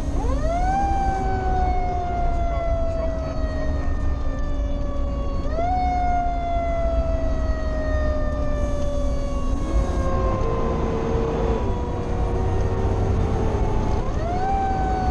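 Fire engine's Federal Q mechanical siren, wound up three times: each time it rises quickly in pitch, then slowly winds down. Under it is the truck's steady engine and road rumble, heard from inside the cab.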